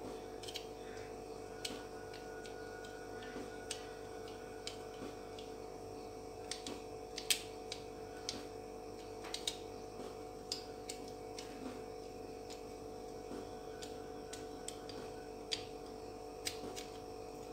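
Gloved hands and a small knife handling and cutting a soft, Pepsi-soaked melon piece: scattered small clicks and ticks at irregular intervals, over a steady low hum.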